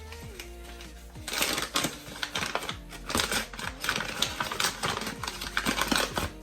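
Flour packaging and a storage container being handled in a kitchen cupboard: dense, irregular rustling and clicking that starts about a second in, over soft background music.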